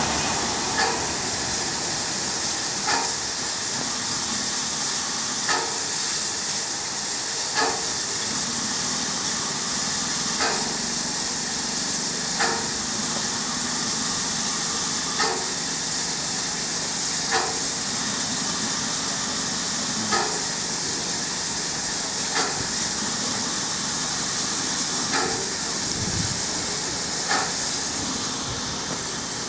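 Freight train wagons rolling past over a steady hiss, with wheels clicking over a rail joint in evenly spaced pairs, about two seconds apart, repeating roughly every five seconds.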